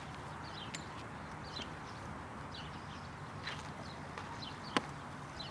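A small bird chirping over and over in short falling notes, over a steady low outdoor rumble, with one sharp click near the end.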